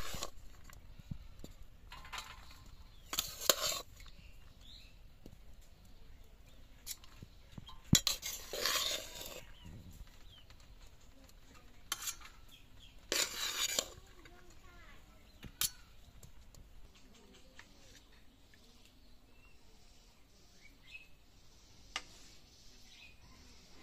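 Metal spoon scraping cooked rice out of a metal pot and knocking it onto steel plates: three scrapes of about a second each, with a few sharp clinks between them.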